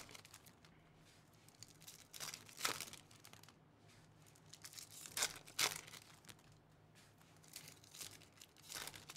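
Foil wrappers of Topps Chrome Update baseball card packs crinkling and tearing as the packs are opened by hand, in a few short rustling bursts, the clearest about two and five seconds in.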